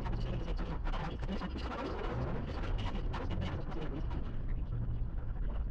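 Steady low road and engine rumble inside a moving car, with indistinct talk mixed in.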